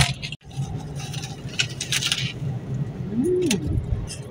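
Steady road rumble inside a moving car, with a few short, crisp crunches from someone chewing fried pork crackling about halfway through.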